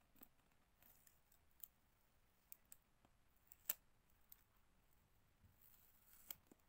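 Near silence with a scattered handful of faint clicks and light taps; the sharpest click comes a little past the middle.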